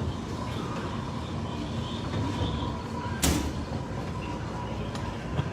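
Steady background din of a busy outdoor crowd space with a low hum, and one sharp knock about three seconds in.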